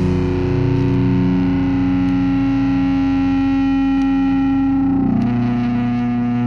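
Hardcore song's distorted electric guitar letting a chord ring out and sustain. The held notes change pitch about five seconds in.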